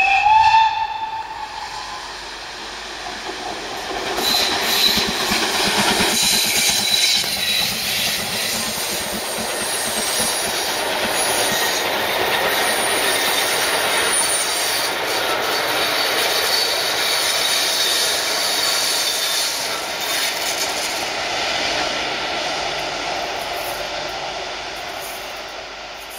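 GWR Castle Class 4-6-0 steam locomotive sounding its whistle briefly at the start. It then passes at speed with its train of coaches: a long, loud rush of wheels on rail with clattering over the rail joints, fading near the end.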